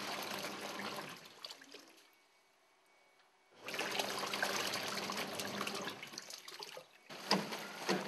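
Water splashing and trickling in separate stretches. It fades out about two seconds in, leaves near silence for about a second and a half, then comes back suddenly, with a short dip and some sharp splashes near the end.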